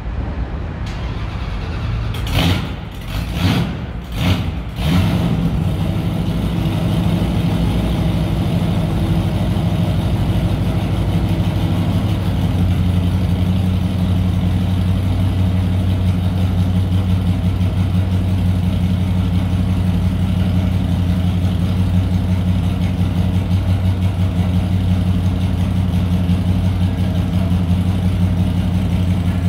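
Dodge Demon's engine starting cold: a few sharp bursts over the first five seconds as it catches, then a steady, slow cold idle.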